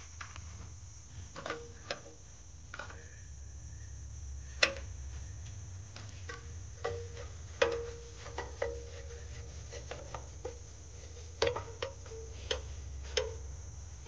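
Scattered clinks and knocks of hand tools on metal car parts, about a dozen, several ringing briefly, over a low steady hum.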